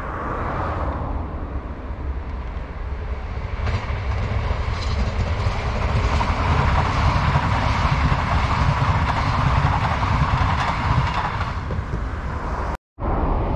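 Yellow NS electric passenger train passing on the line, growing louder to a peak and then easing off, with a low rumble and some wheel clatter on the rails. The sound breaks off abruptly for a moment near the end.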